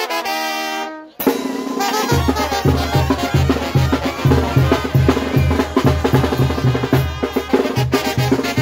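Oaxacan banda de viento (brass band) playing. A held brass chord stops about a second in. The band then strikes up a fast tune, with tuba and bass drum pumping a steady beat from about two seconds in under trumpets and trombones.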